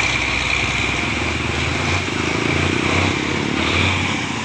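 Motor vehicle engines running close by, a motorcycle among them, with a low engine rumble that swells in the second half. A steady high-pitched buzz runs underneath throughout.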